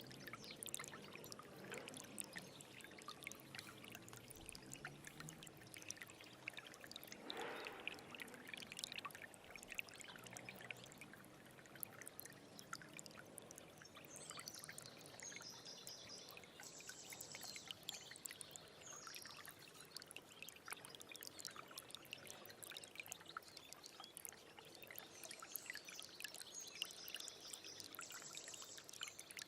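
Small stream of water trickling and gurgling, a steady splashing with many small drips, and a louder gurgle about a third of the way in.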